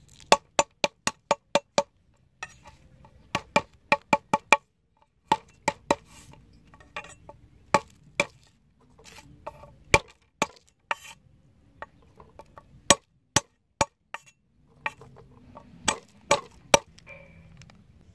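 Cleaver chopping on a wooden cutting board: quick runs of sharp knocks, about five a second, broken by short pauses.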